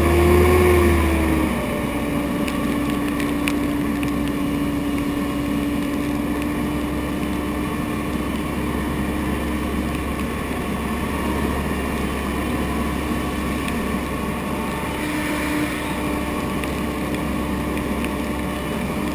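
Small watercraft's engine running steadily at cruising speed, with wind and water rush. The engine note rises slightly at the start, drops about a second and a half in, then holds steady.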